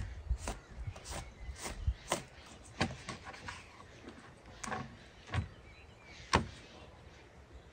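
Knife cutting raw sheep offal on a wooden cutting board: short, sharp knocks of the blade meeting the board, about two a second at first, then sparser, with the loudest a little over six seconds in.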